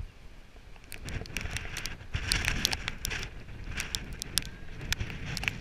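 Storm wind buffeting the microphone, with a rushing noise that swells about two seconds in. Many sharp ticks from drops striking the camera are scattered through it.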